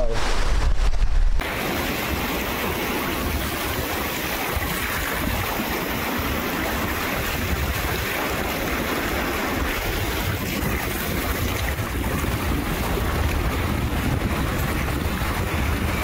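Rushing whitewater of a river rapid: a steady wash of water noise. Wind buffets the microphone for about the first second and a half.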